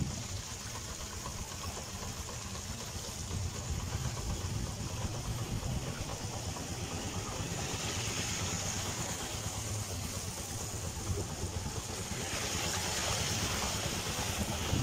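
Motorcycle engine running steadily at low speed as its tyres push through standing floodwater, with a hissing wash of water spray that swells about halfway through and again in the last few seconds.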